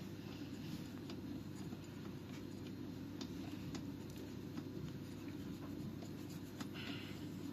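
Faint scattered clicks and light rustling of a hand working under a mini motocross bike's fuel tank to unscrew the spark plug, over a steady low hum.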